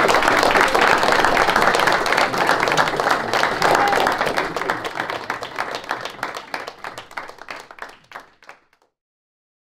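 Audience applauding, a dense patter of many hands clapping that thins out and fades away over the last few seconds.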